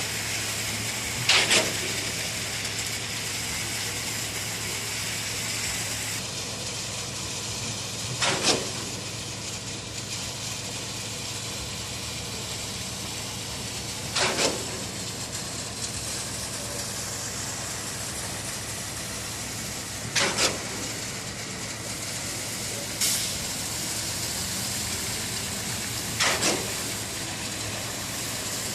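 Steady machinery hiss and hum on a building site, broken by sharp double knocks, like metal striking metal, about every six seconds.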